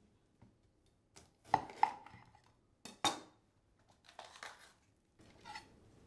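Kitchen food-prep sounds on a wooden cutting board: a handful of separate, irregular knocks and clatters of food and utensils, the loudest a little after a second and around three seconds in.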